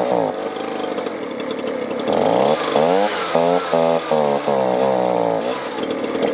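Small two-stroke leaf blower engine running unevenly, its pitch climbing and dropping in several quick rev surges before easing back near the end. The engine starts and runs on choke but bogs when switched to run, which the owner takes to mean it is not getting the fuel it needs (old gas, clogged filter, carburetor or fuel line).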